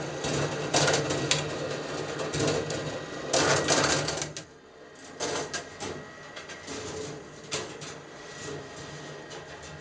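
Balls rolling and clattering along the copper tracks of a rolling ball sculpture, with sharp clicks as they hit rails and switches, over a steady low hum. The rattling is loudest about three to four seconds in, then drops to quieter, scattered clicks.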